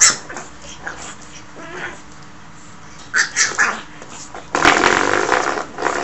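Pug puppy playing with a spring door stop: the spring twangs as it is pawed and bitten, mixed with the puppy's small growls. A sharp hit at the start, a quick run of sounds about three seconds in, and a longer, louder stretch near the end.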